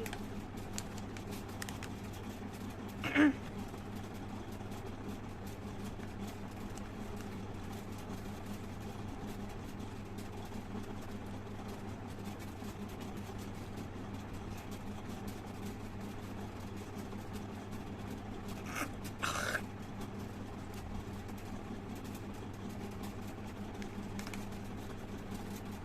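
A woman makes two short throat-and-mouth sounds of the spit-and-cough kind, a sharp one about three seconds in and a longer one near twenty seconds, over a steady low hum.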